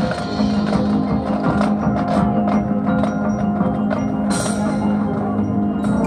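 Marching band playing its show music: a sustained low chord held under repeated struck mallet percussion, with a brief crash about four seconds in.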